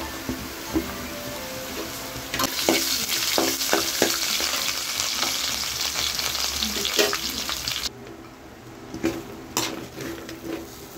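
Vegetables sizzling in hot oil in a metal wok while a metal ladle stirs and scrapes against the pan with sharp clinks. The sizzle grows loud about two seconds in and falls away near the end, leaving only a few clinks of the ladle as the noodles are tossed.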